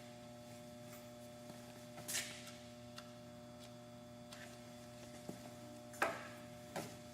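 Faint steady electrical hum, with a few light clicks or knocks at about two seconds and again near six and seven seconds in.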